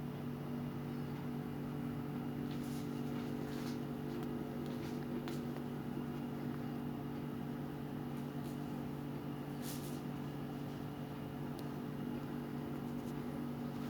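Steady low hum made of several constant tones, with a few faint clicks.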